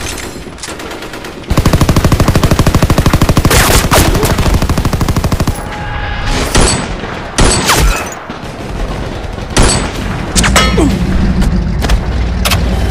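Battle sound effects: a long burst of rapid machine-gun fire lasting about four seconds, followed by scattered single gunshots. A low, steady engine rumble comes in near the end.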